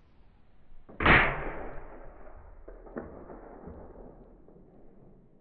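Suppressed .30-30 lever-action rifle firing a single shot about a second in: a muffled report that fades away over about a second. A much fainter sharp click follows about two seconds later.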